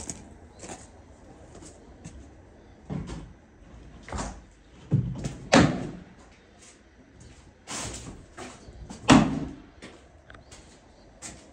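About half a dozen irregular knocks and bangs, like objects or wood being handled. The loudest come a little past halfway and again about three-quarters in.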